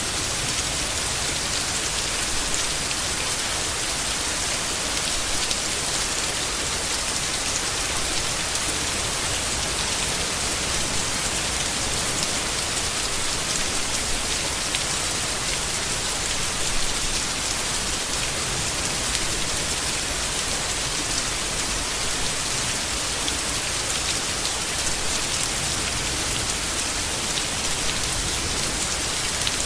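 Steady heavy rain falling on leaves, a dense even hiss with fine scattered drop patter.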